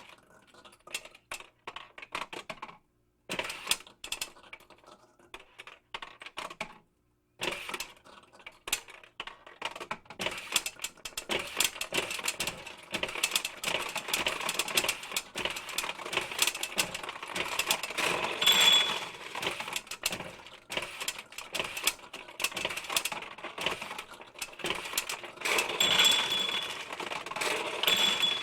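Pachinko machine in continuous play: a dense clatter of small steel balls rattling through it. The clatter comes in short spurts with gaps at first, then runs without a break, with brief high tones about two-thirds through and again near the end.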